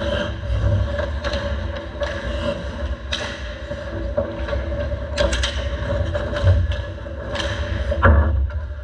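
Ice hockey play around the goal crease: skate blades scraping the ice and repeated sharp clacks of sticks and puck against each other and the goalie's pads, with a heavy thud about eight seconds in. A steady hum runs underneath.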